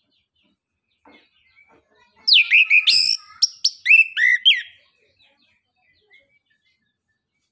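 Chestnut-capped thrush (anis kembang) singing: a loud burst of sharp whistled notes, mostly quick downward sweeps, lasting about two and a half seconds from about two seconds in, with faint soft notes around it.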